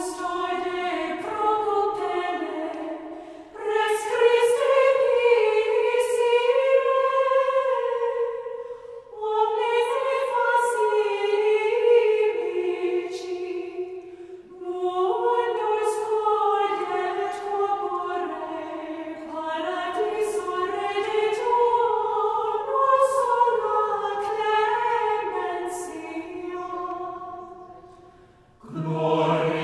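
Choir singing a slow sacred chant in long sustained phrases, broken by short pauses about every five seconds.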